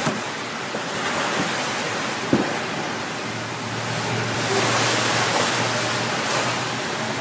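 Pool water splashing and sloshing around a plastic whitewater kayak as it is rolled back upright and paddled, over a steady wash of water noise. There are a couple of sharp knocks in the first few seconds, and the splashing grows louder about four and a half seconds in, as the boat comes up and the paddle churns the water.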